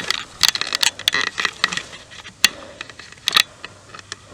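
Irregular sharp metallic clicks and clanks of tools and loose car parts being handled during strut removal, a quick run of them in the first couple of seconds, then a few single knocks.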